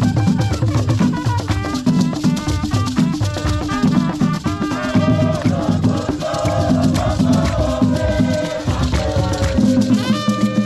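Live Ghanaian traditional drum ensemble playing a steady, dense rhythm on barrel drums, with rattles shaking along and voices singing over it.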